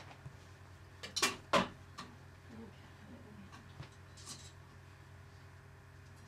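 Two short, sharp noises about a second in, then a few faint clicks and a brief soft hiss over a steady low hum.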